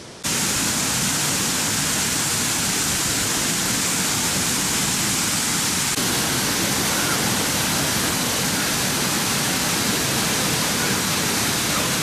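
Waterfall pouring into a rocky plunge pool: a steady, even rush of falling water that cuts in sharply just after the start.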